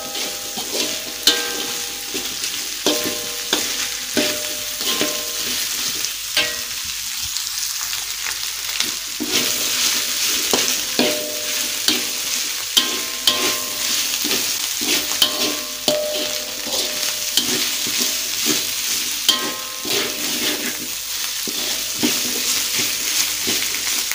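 Ground spice paste, green chillies, rimbang and petai sizzling in oil in a metal wok, stirred with a metal spatula that scrapes and clicks against the pan, the wok ringing briefly with many of the strokes.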